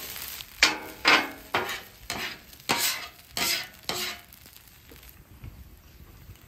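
Metal spatulas scraping across a Blackstone steel griddle top, pushing fried rice aside and scraping the cleared surface: about seven sharp scrapes, a little under two a second, stopping about four seconds in.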